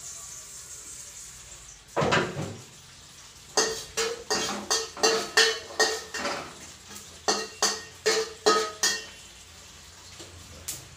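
Metal spatula scraping and striking a steel wok while stirring sesame seeds as they dry-roast. One long scrape comes about two seconds in, then a quick run of about fifteen strokes, roughly two a second, each leaving a short metallic ring.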